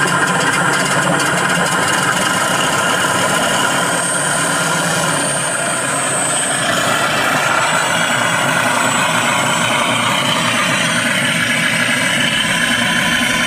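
Radio-controlled T-28 Trojan model plane's motor and propeller running steadily as it taxis, the pitch shifting about halfway through with throttle.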